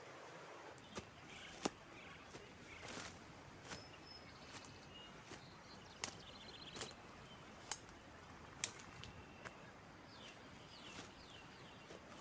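Footsteps on a twig-strewn forest floor, with irregular sharp snaps of small sticks about once a second over a faint forest hiss. A few faint high bird chirps come in between.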